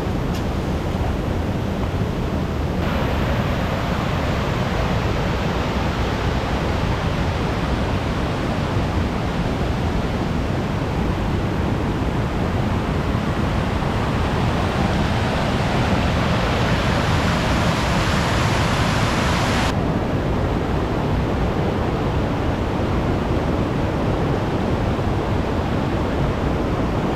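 Rushing river water and waterfalls: a loud, steady roar of water. It grows brighter and hissier a few seconds in and drops back abruptly about two-thirds of the way through.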